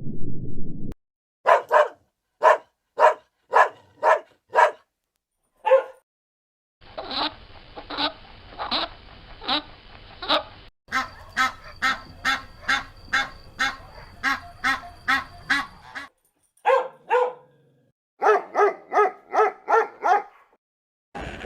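Short, evenly repeated animal calls in several separate clips: a run of about two calls a second, then slower calls over background noise, then faster runs of about three a second. A low rumble is heard at the very start.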